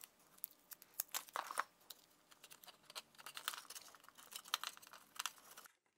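Faint paper rustling and crinkling as the sheet is handled, folded and pressed into place, with scattered small crackles and clicks; it stops suddenly near the end.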